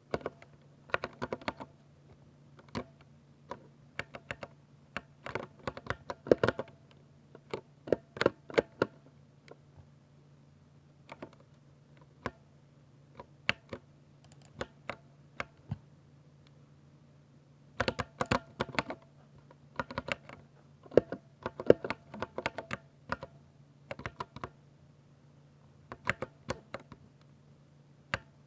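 Typing on a 60% Ducky mechanical keyboard with linear silver switches: runs of quick key clacks in bursts, broken by short pauses, over a faint steady hum.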